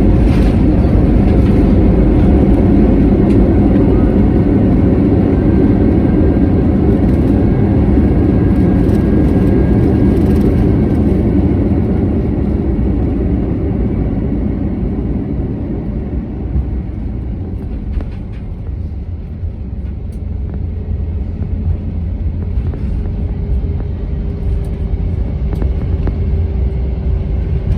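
Airbus A321-200 cabin noise as the jet rolls out after touchdown. There is a loud, deep rumble of engines and wheels on the runway, which falls off over the first dozen seconds as the plane slows. A lower, steady rumble follows at taxi speed.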